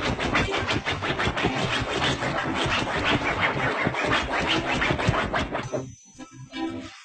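A pug's front paws scratching and digging rapidly at a fabric sofa cushion, many quick strokes a second, stopping abruptly about six seconds in.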